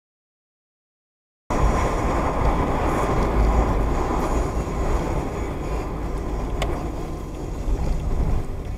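Silence for about a second and a half, then the steady low rumble and hiss of a car driving slowly through town, heard from inside the cabin by a windscreen dashcam, with one sharp click a few seconds later.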